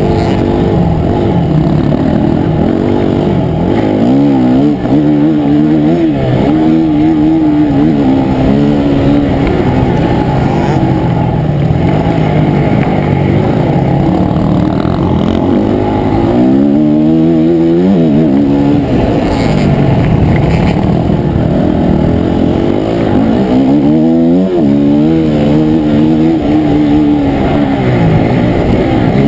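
Dirt bike engine heard from a camera mounted on the bike while riding a motocross track, revving up and falling back again and again through the gears. Muffled, with a steady rush of noise under it.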